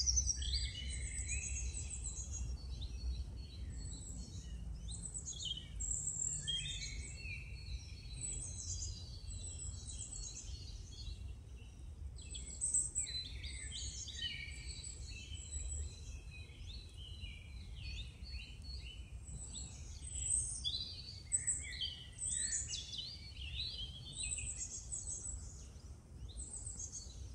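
Several songbirds singing over one another, a busy mix of short chirps, trills and whistles, over a faint steady low rumble.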